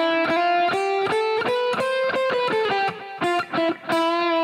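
Electric guitar playing the C major scale as single picked notes, climbing step by step and then coming back down.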